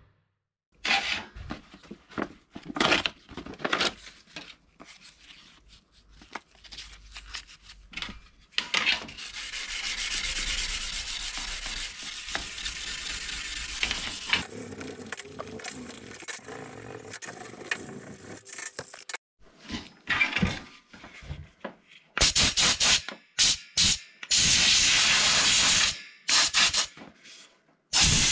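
A cloth rubbed back and forth over a carbon-fibre tube. From about two-thirds of the way in come several abrupt bursts of hissing air from a compressed-air blow gun, the longest lasting about a second and a half.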